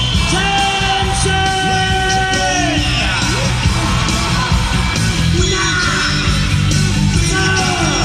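Loud rock entrance music with a sung vocal over a heavy beat, played through an arena sound system, with crowd yelling. A long held vocal note early on falls away at about three seconds.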